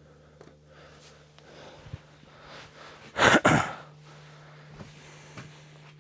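A person's sharp exhale of breath about three seconds in, loud and lasting about half a second, with a few faint knocks and clicks before and after.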